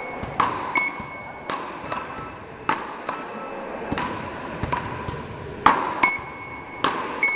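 Beach-paddle rackets (ρακέτες) striking a small ball in a fast rally, a sharp echoing knock about every half second. Short steady electronic beeps from the rally-measuring machine follow several of the hits.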